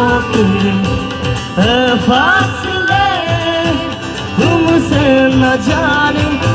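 Live band playing a Bollywood-style song: electric guitars, keyboard and drums, with singing that slides between notes over steady chords.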